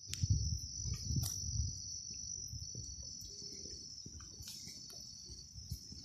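Insects in forest undergrowth trilling steadily at a high pitch, with irregular low thuds from walking along a dirt path with the camera, heaviest in the first couple of seconds and again near the end.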